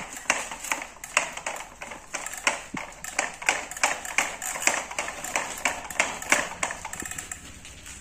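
Hard plastic toy parts clicking and clattering as a small toy excavator is handled on a plastic toy truck: a quick, irregular run of light taps, several a second, thinning out near the end.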